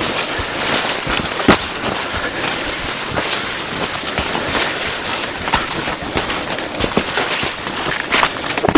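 Footsteps pushing through dense undergrowth: leaves rustling against legs and body, with dry leaves and twigs crackling and snapping underfoot in an irregular run of sharp clicks.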